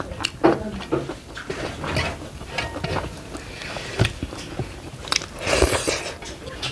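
Eating sounds of rice and greens eaten by hand: chewing and mouth sounds with scattered clicks and scrapes of fingers mixing rice in a metal bowl. A louder noisy rush comes about five and a half seconds in.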